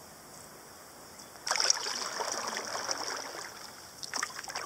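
Kayak paddle strokes in the water: after a quiet second and a half, the blade dips in with a splash and water trickles and drips off it, followed by another set of splashes about four seconds in.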